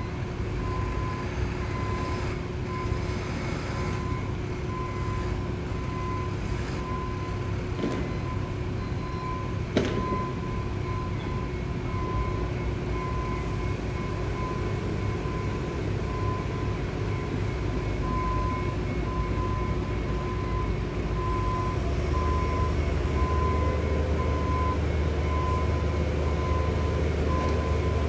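Heavy construction machinery engine rumbling steadily, with a reversing alarm beeping about once a second. The engine grows louder about three-quarters of the way through, and there is a single sharp knock about ten seconds in.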